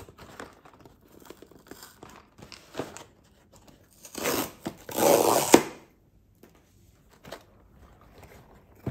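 A subscription box being torn open by hand: scattered rustling and scraping, then two loud tearing rips about four and five seconds in, the second the louder.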